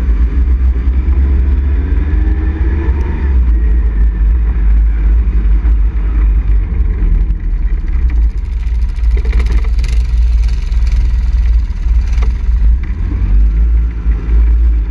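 ATV engine running under throttle on a dirt trail, with a heavy low rumble; its pitch rises and falls a couple of seconds in as the rider works the throttle.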